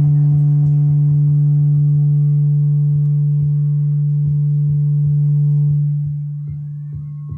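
A man's voice holds one long, steady low chanted note into the microphone, fading after about six seconds, with faint soft knocks running under it.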